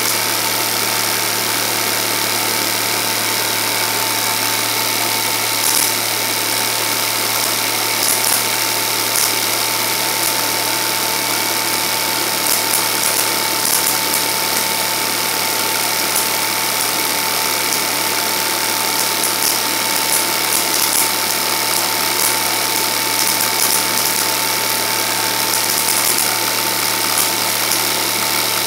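Film projector running: a steady motor hum and mechanical whirr of the film transport, with a constant thin tone and scattered faint ticks.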